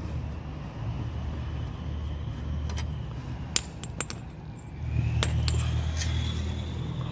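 Sharp metallic clinks, about half a dozen, of a wheel nut and wrench being handled as the first wheel nut comes off a car wheel, over a steady low rumble.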